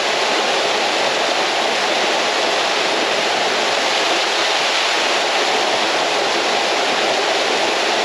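Waterfall pouring steadily into a shallow rock plunge pool, the falling water splashing over a person standing under it: a constant, even rush of water.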